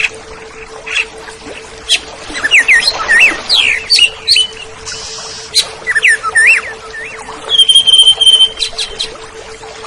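Oriental magpie-robin (kacer) singing: a run of varied whistled notes sliding up and down, mixed with sharp clicks, with a long held whistle near the end. A faint steady hum sounds underneath.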